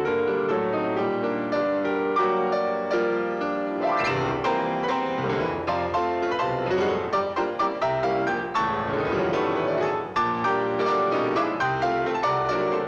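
Piano music played briskly, with many quick notes in a lively run.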